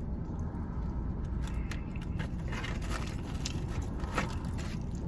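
Steady low rumble inside a car's cabin, with a few faint crackles and crunches of chewing crispy fried chicken.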